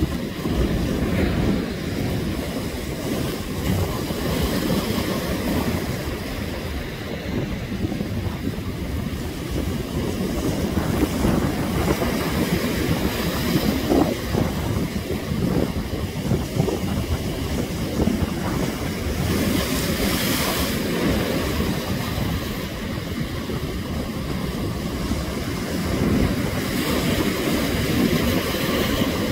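Heavy surf breaking and washing over rocks, under a steady low rumble of wind buffeting the microphone. Hissing surges of breaking waves rise and fall every several seconds, the strongest about twenty seconds in.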